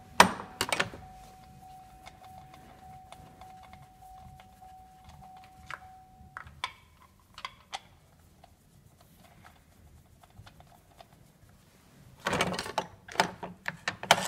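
Compression tester being handled on a Chevrolet F16D3 1.6 L engine: a few sharp clicks and knocks about half a second in as the gauge hose comes off, then scattered small metallic clicks as the adapter is worked out of a spark plug hole, and a burst of rustle and clatter near the end as it is moved to the next cylinder. A faint steady whine runs underneath and stops about six seconds in.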